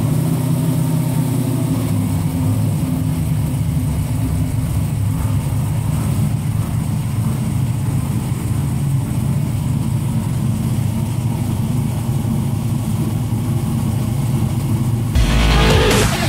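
GM LQ9 V8 in a modified race car idling steadily on a chassis dyno, its note low and even. About a second before the end, electronic music cuts in over it.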